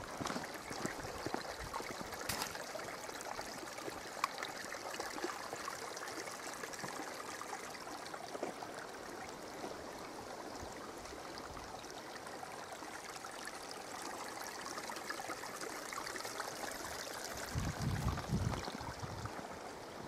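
Steady, even outdoor rushing hiss with a few faint clicks, and a short run of low thumps near the end.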